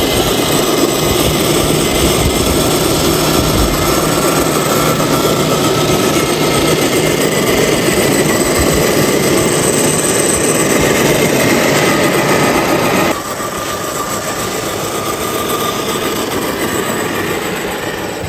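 Electric motor and gearbox of a radio-controlled scale Toyota Land Cruiser FJ40 crawler whining steadily as it drives off-road. The sound drops suddenly about thirteen seconds in and fades slightly near the end.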